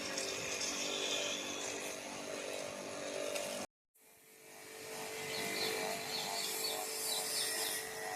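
A motor running with a steady hum, cut off abruptly about four seconds in by a brief gap of silence, then running again.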